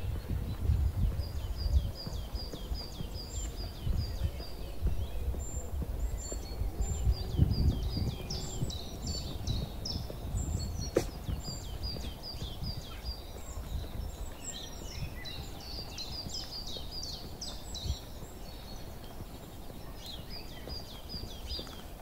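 Several small songbirds singing and calling: runs of quick, evenly repeated high chirps, about four a second, with more varied warbling song over them in the middle, against a low, uneven rumble.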